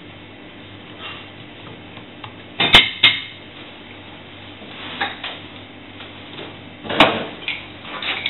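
Kitchen knives set down with sharp clinks of steel on a plate and a stainless-steel counter: two close together about three seconds in, and another about seven seconds in.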